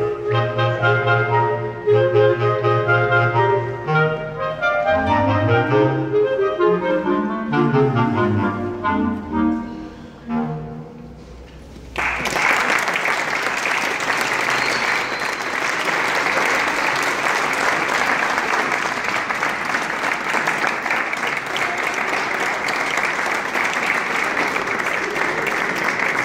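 Clarinet quartet of three clarinets and a bass clarinet playing the closing bars of a piece, with quick rising and falling runs, fading out about ten seconds in. About twelve seconds in, applause breaks out and continues.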